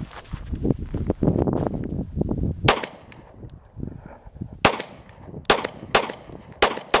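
9mm pistol firing six shots: one about three seconds in, then five more in quick succession over the last two and a half seconds. A low rumbling noise comes before the first shot.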